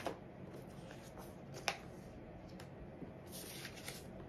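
Photo prints being gathered up and slid across a wooden tabletop: faint rustling of paper with a few light taps, the sharpest about a second and a half in.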